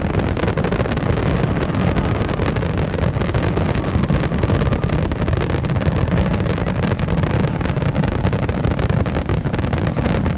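Wind buffeting the microphone: a steady low rumble with many small crackles running through it.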